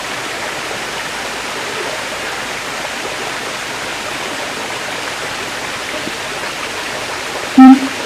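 Steady rushing background noise with no distinct events, then about half a second before the end one short, loud, low pitched note from a siamang.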